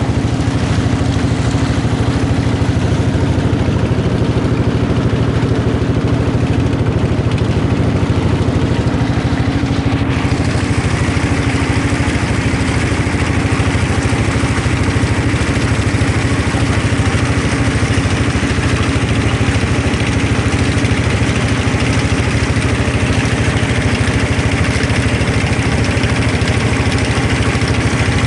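Engines of motorized wooden country boats running steadily at cruising speed, a continuous drone, with the hiss of water rushing past the hulls.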